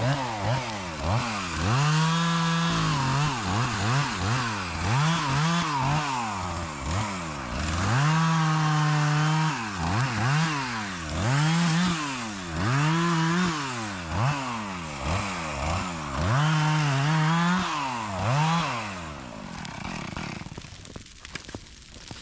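Gasoline chainsaw run at full throttle in repeated bursts, the engine pitch climbing, holding high for a second or two, then dropping back, over and over. It winds down about twenty seconds in.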